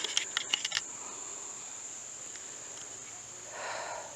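A steady, high-pitched chorus of insects trilling in the woods, with a few sharp clicks in the first second and a soft rush of breath near the end.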